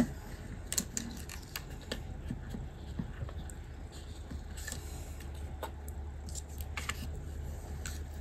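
Light handling sounds as paper stickers are lifted off a planner page with an Un-du adhesive-remover bottle: scattered small clicks and rustles, over a steady low hum.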